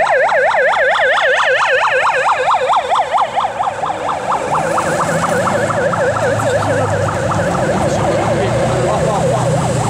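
Fast yelping siren from a course car with a roof light bar, fading after about four seconds as the engine noise of Subaru Impreza rally cars rises and runs steadily.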